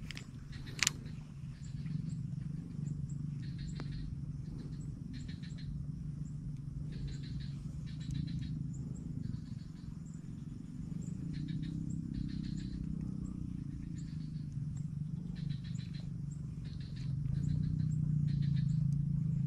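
Frogs calling in a dense swamp chorus: a steady low croaking, with short raspy calls higher up repeating about once a second. A single sharp click comes about a second in.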